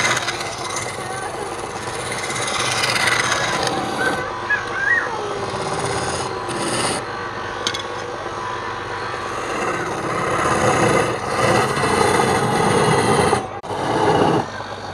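Wood spinning on a woodturning lathe while a tool scrapes and cuts it, a continuous rough rasping that swells and eases unevenly and drops out briefly near the end.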